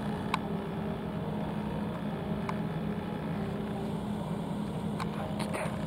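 Steady low hum of a running engine, with a few faint clicks.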